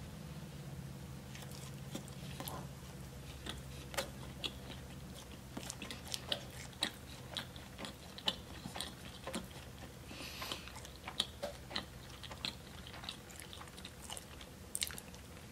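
Close-up mouth sounds of a person chewing a soft glazed donut: repeated short wet smacks and clicks of lips and tongue, with a short breath through the nose about ten seconds in.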